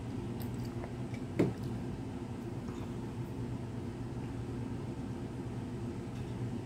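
Steady mechanical hum of an indoor appliance running, with a short falling-pitch sound about one and a half seconds in.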